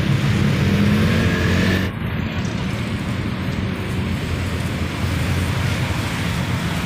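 Busy city road traffic: vehicle engines running with a low hum and the steady noise of passing cars. The sound shifts abruptly about two seconds in.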